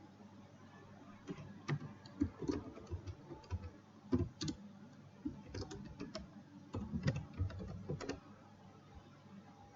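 Computer keyboard typing: irregular keystrokes with short pauses, as an address is entered into a web form.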